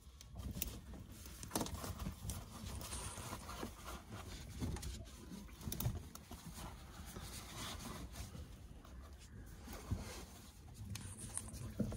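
Faint rustling and small scattered clicks of gloved hands working at a diesel fuel filter cartridge and its sensor wires, with an absorbent pad being handled.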